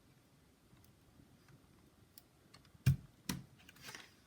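Small clicks and light knocks of laptop parts being handled during disassembly, with two sharp clicks about half a second apart near the three-second mark.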